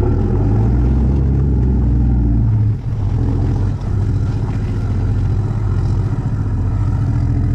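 Low, steady drone of a vehicle on the move. It dips and shifts briefly about three seconds in, then carries on.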